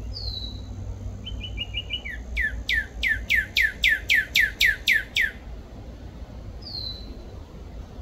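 Male northern cardinal singing: a single falling whistle, a quick run of short notes, then a series of about eleven loud down-slurred whistles at roughly three a second, and one more falling whistle near the end.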